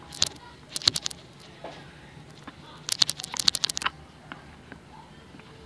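Homemade flour-and-water slime being squeezed and worked by hand in a small plastic cup, giving bursts of rapid sticky clicks and crackles: a short burst at the start, another about a second in, and the longest about three seconds in.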